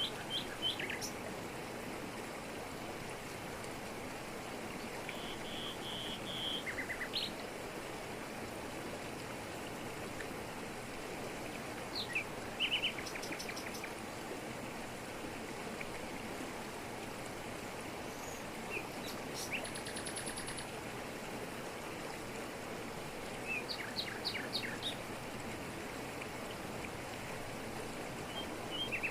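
Waterfall pouring over rocks, a steady rushing hiss, with birds chirping and calling above it in short bursts and trills every few seconds.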